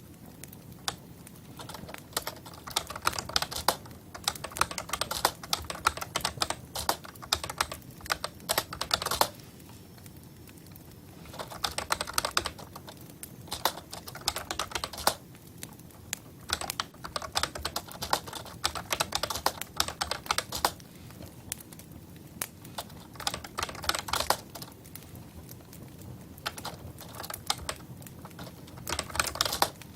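Typing on a computer keyboard: rapid runs of key clicks in bursts of a few seconds, with short pauses between them.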